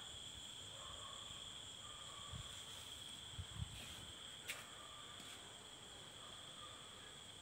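Night insects chirring in a steady, high, unbroken drone, with a few faint thumps and one sharp click around the middle.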